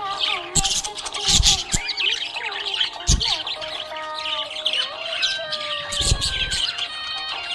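Budgerigars chirping and warbling continuously, many overlapping short calls and pitch glides, with a few loud, sharp calls standing out.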